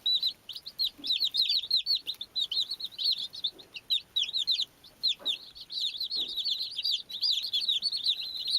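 A brood of baby chicks peeping continuously, many high, short, downward-sliding peeps overlapping several times a second.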